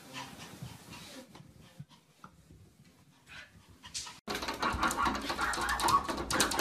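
Soft, faint bumps as a small pet slides down carpeted stairs. About four seconds in, a sudden louder stretch of rapid tapping begins as a dog and a cat paw at each other against a glass sliding door.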